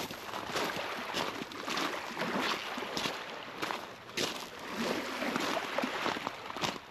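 Outdoor walking ambience at the seaside: a steady rushing noise with irregular footsteps and small knocks.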